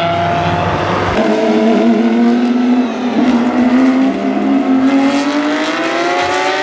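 Race car engines running at speed on a circuit. About a second in the sound switches from a small classic sports car's engine to GT race cars, whose engine notes climb slowly and steadily in pitch as they accelerate.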